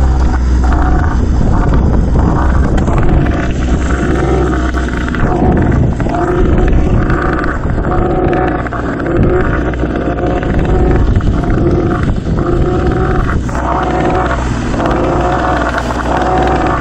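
Small outboard motor running steadily on an inflatable boat under way at sea, its note swelling and dipping every couple of seconds.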